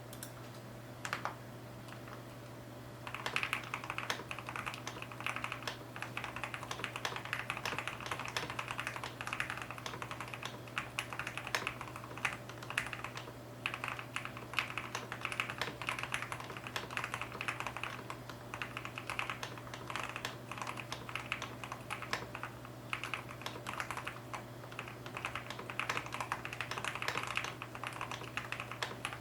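Continuous typing on a Zuoya GMK67 mechanical keyboard with lubed Outemu Dust-proof Silver linear switches and Cherry-profile keycaps: a dense stream of key clacks. A single keystroke sounds about a second in, and steady typing starts about three seconds in, over a low steady hum.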